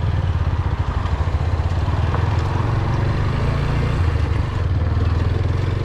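Motorcycle engine running as the bike pulls away and rides along the road, a steady low rumble.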